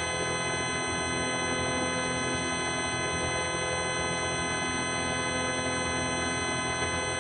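A steady, unbroken buzzing tone, rich in overtones, holding one pitch and level.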